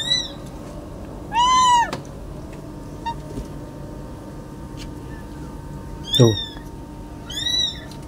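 Young kittens mewing: about four thin, high-pitched mews, the longest and loudest about a second and a half in.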